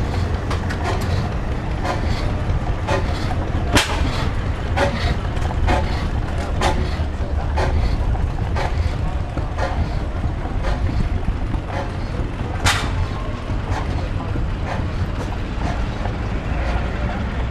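Golf cart riding along a dirt lane: a steady low rumble, with sharp clicks and knocks about once a second.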